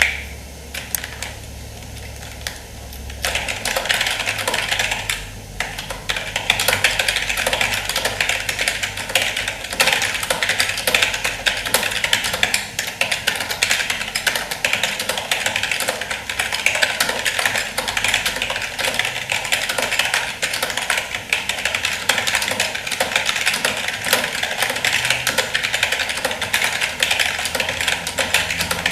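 Fast typing on a Rexus membrane keyboard: a dense, continuous clatter of key presses. It starts about three seconds in, after a few scattered presses, with only a brief break near the 5-second mark.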